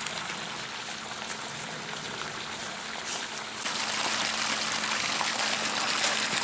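Steady rush of water as an electric sump pump empties a flooded well, with a faint steady hum underneath; the rush gets louder a little past halfway.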